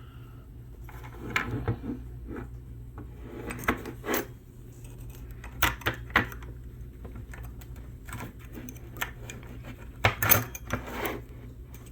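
Metal parts of a manual 4x4 locking hub clinking and scraping as a spring is picked out of it. The clicks are irregular, with a louder cluster of clanks about ten seconds in, over a steady low hum.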